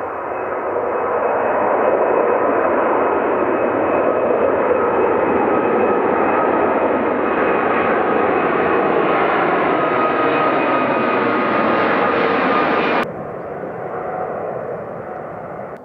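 Airbus A380's four jet engines at takeoff thrust as it climbs out overhead: a loud, steady jet roar with thin whining tones through it, building over the first two seconds. About thirteen seconds in it drops suddenly to a quieter, duller rumble as the airliner flies away.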